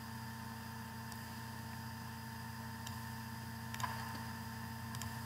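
Steady low electrical hum, with a few faint mouse clicks scattered through it, the clearest a little before four seconds in.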